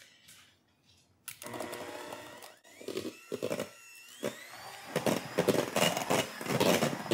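Electric hand mixer whipping egg whites (meringue with vanilla) toward stiff peaks: the motor starts about a second in with a whine that rises in pitch, and the beaters clatter repeatedly against the stainless steel bowl in the second half.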